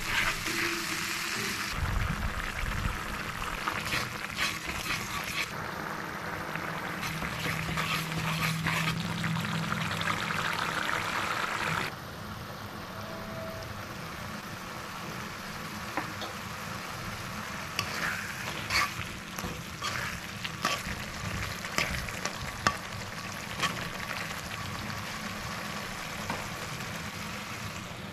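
Onion-and-spice masala sizzling in hot oil in a wok while a metal spatula stirs and scrapes it. The sizzle is louder for the first twelve seconds or so, then drops to a quieter frying with scattered clicks of the spatula on the pan.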